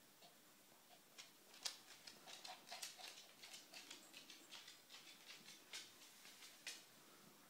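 Shih Tzu puppy licking its paw: an irregular run of small wet clicks and smacks of the tongue for several seconds, the sharpest about a second and a half in.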